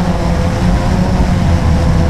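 Motor and propeller of an RC model aircraft droning steadily in flight, heard from the onboard camera, with wind rumbling over the microphone.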